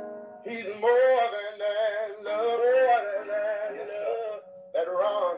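A male voice singing a gospel song over guitar, in long held notes that waver in pitch, with a short break about four and a half seconds in. The sound is thin, with no treble, as over a Zoom call.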